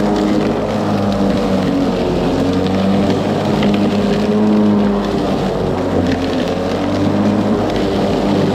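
Ryobi 40V brushless electric lawn mower running under load: a steady hum from the motor and spinning blade over a broad rushing noise, its pitch wavering slightly as it works through thick growth.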